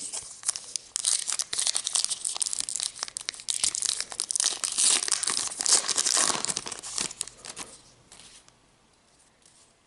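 Foil wrapper of a Topps Gypsy Queen baseball card pack being torn open and crinkled by hand, a dense crackling that runs for about seven and a half seconds and then stops.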